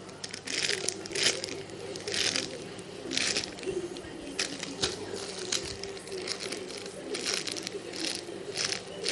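Crinkling and rustling in short irregular bursts, about one or two a second, as mini squishy toys and their wrapping are handled.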